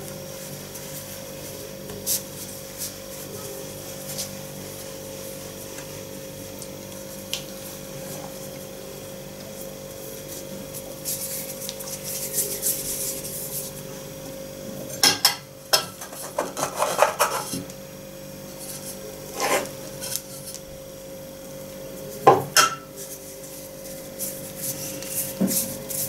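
Hands rolling balls of sweet adzuki bean paste in starch: soft rubbing and rasping of palms and powder, with a few louder scrapes and knocks in the second half, over a steady low hum.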